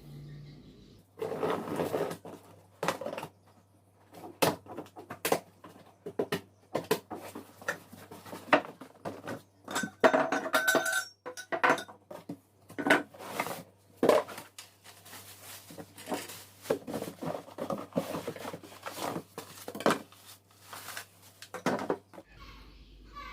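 Stand-fan parts being handled and fitted together: a quick, irregular run of knocks, clinks and rattles of hard plastic and metal pieces.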